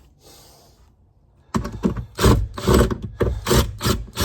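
Hand tools working on a wooden cabinet: after a short lull, a run of loud scraping, knocking strokes, about two a second.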